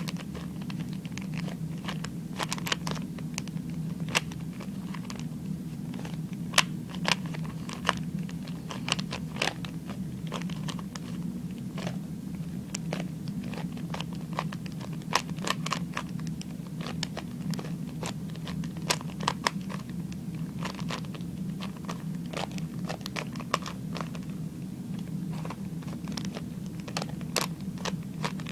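A plastic 3x3 Rubik's cube being turned quickly by hand: irregular rapid clicks and scrapes of the layers snapping round. A steady low hum runs underneath.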